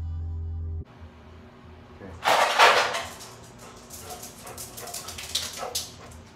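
A dog gives a loud bark about two seconds in. It is followed by a run of light clicks and jingles from the dog's nails and collar as it walks up.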